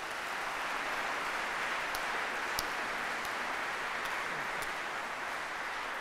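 Audience applauding in welcome: many hands clapping steadily, with a few single sharper claps standing out.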